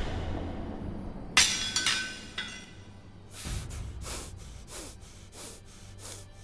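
Foley of a sickle striking a sword: one sharp metallic clang that rings on, then two lighter ringing metal hits. After that comes fast, panicked breathing, about three quick breaths a second.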